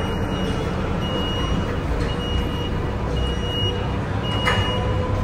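A ferry's engines run with a steady low rumble over churning water while an electronic warning beeper sounds roughly once a second, each beep about half a second long. A single sharp clank comes near the end.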